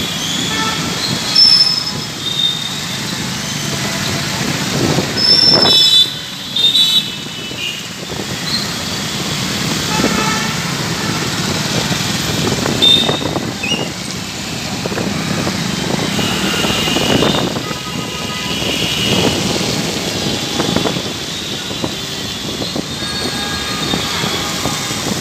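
Road traffic on a flooded street: motorcycle and car engines, with horns tooting again and again, several of them in the first seven seconds and more later on.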